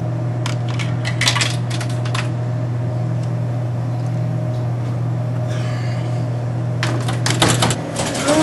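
Coins clinking one after another as they are dropped into a snack vending machine's coin slot, over a steady low hum. Near the end comes a quick run of clicks and rattles.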